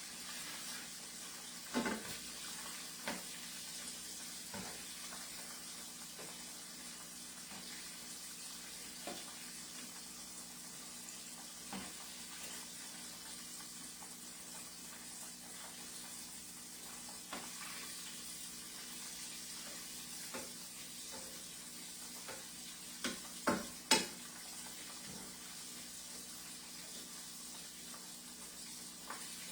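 Battered chicken pieces deep-frying in canola oil, a steady sizzle, with scattered clinks and knocks of a utensil against the pan as pieces are lifted out; two louder clinks come near the end.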